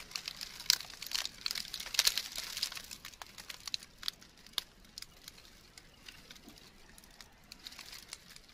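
Close crinkling and crackling of something dry being handled: a dense run of small, sharp crackles that thins out after about three seconds.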